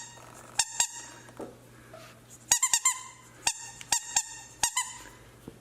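Squeaker in a puppy's toy squeaking over and over as it is chewed: short, high squeaks, a couple near the start, then several quick clusters in the second half.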